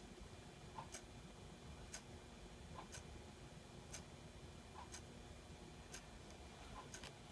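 Faint, even ticking of a clock, exactly once a second.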